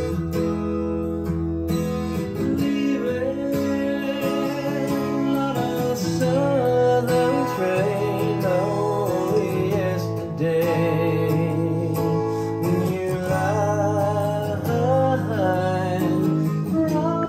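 Acoustic rock music with strummed acoustic guitar and singing, played back from a type II cassette on an Aiwa AD-F990 tape deck. It cuts off suddenly at the end.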